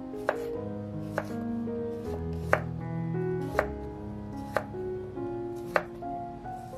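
Chef's knife slicing a small cucumber on a wooden cutting board: six sharp knocks of the blade hitting the board, roughly a second apart, over soft background music.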